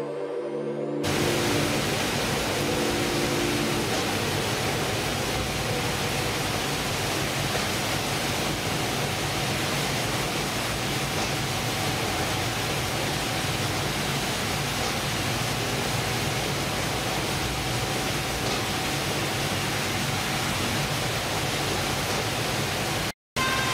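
Steady, even rushing noise of processing machinery and running water on a fishing vessel's fish-processing deck. It follows a brief steady hum in the first second and drops out to silence for a moment near the end.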